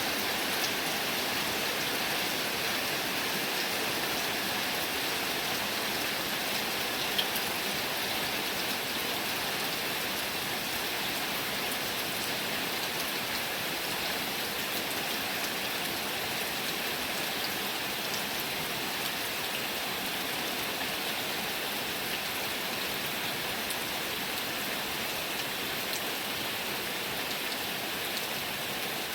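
Heavy rain falling steadily, a dense even hiss with individual drops ticking through it and one sharper drip-like tick about seven seconds in.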